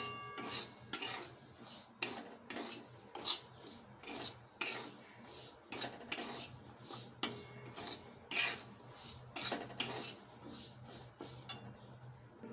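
Metal spatula scraping and clinking against a metal kadai as semolina with peanuts and curry leaves is stirred while it roasts, with irregular knocks roughly once a second. A steady high-pitched whine sits behind it.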